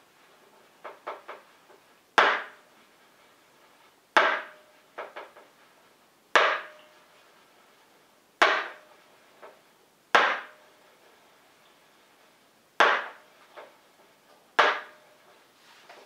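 Stainless-steel pitcher of frothed milk knocked down on the countertop seven times, about every two seconds, each knock leaving a short metallic ring, with fainter taps between.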